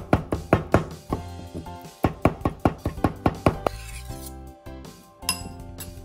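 Kitchen knife chopping rapidly on a wooden cutting board, about five chops a second in two runs, mincing pickled plums (umeboshi) into a paste for tataki ume. A spoon clinks once against a glass bowl about five seconds in, over background music.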